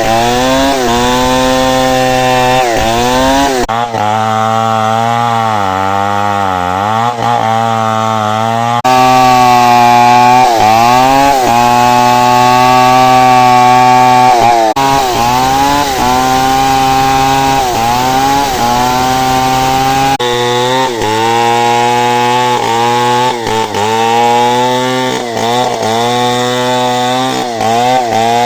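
Chainsaw running at high revs while cutting wood, its engine pitch repeatedly dipping under load and climbing back as the chain bites and frees. The sound changes abruptly a few times.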